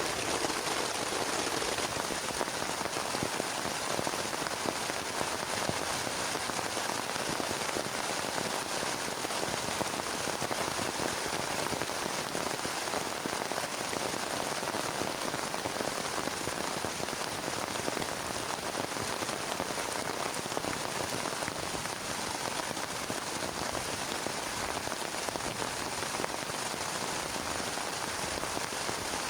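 Heavy rain falling steadily on a plastic tarp, a dense, even hiss of countless drops with no let-up.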